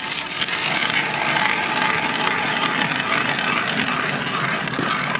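Hand ice auger boring through lake ice: a steady crunching scrape as the blades cut the ice.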